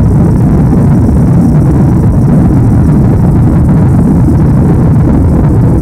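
Loud, steady low rumble of a Boeing 747's jet engines at takeoff thrust, heard from inside the passenger cabin as the airliner climbs just after liftoff.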